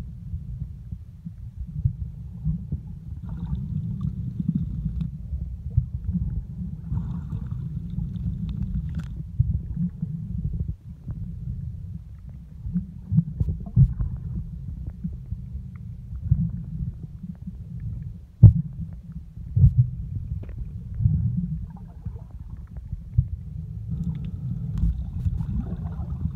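Muffled low rumble of water moving around an underwater camera, with irregular knocks and thuds, one sharper knock about two-thirds of the way through.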